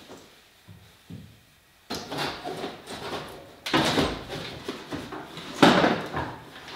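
Irregular scraping and knocking, like something being slid and handled, starting suddenly about two seconds in, with the loudest scrapes around four and six seconds in.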